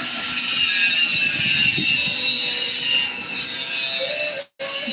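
Angle grinder grinding steel: a steady, high-pitched grinding hiss that breaks off for a moment near the end.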